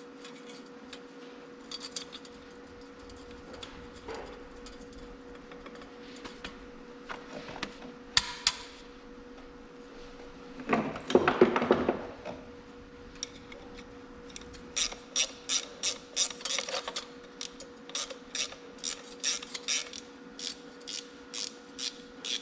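Hand ratchet wrench running bolts into a dirt shield on a tractor axle housing: scattered clicks, a short metallic clatter about eleven seconds in, then quick, even runs of ratchet clicks through the second half.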